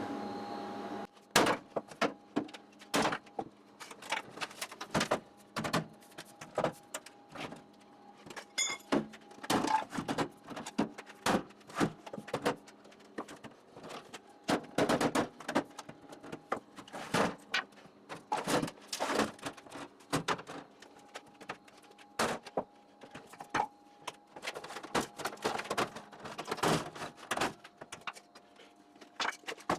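Irregular hammer blows on the sheet-steel body of a Kobalt tool chest, roughly one or two a second, with a faint ringing of the metal: the cabinet, bent out of square, is being pounded straight.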